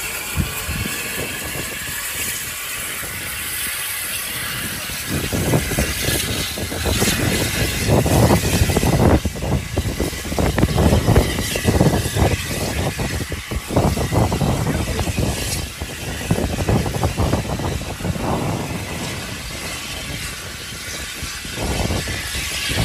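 LSWR T3 class 4-4-0 steam locomotive pulling away. Its exhaust beats and running noise build up about five seconds in and ease off again near the end as it draws away.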